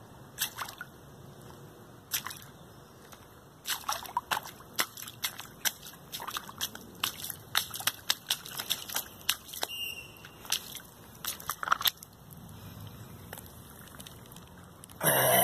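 Irregular wet clicks and small splashes in shallow rainwater on a concrete rooftop, thickest from about four seconds in to about twelve, with a louder rush of noise right at the end.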